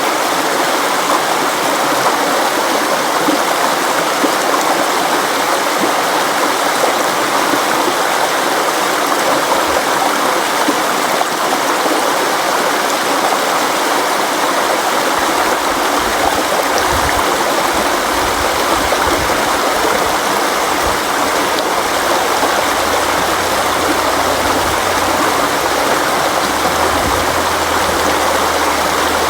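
River water flowing steadily, a continuous even rush. A faint low hum comes in during the second half.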